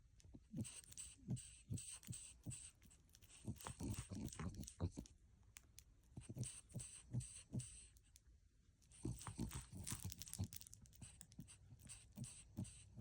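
Quiet close-up noises from a French bulldog: irregular short snuffles, clicks and mouth sounds a few times a second, with a quieter spell about eight seconds in.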